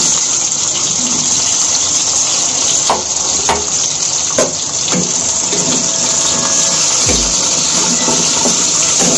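Pointed gourd (potol) pieces sizzling steadily in hot oil in a non-stick wok, with a few sharp clicks and knocks around the middle as pieces are laid in and moved with a wooden spatula.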